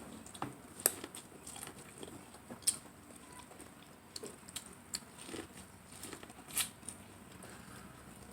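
A person eating close to the microphone, chewing and biting into young corn, with scattered crisp clicks and crunches.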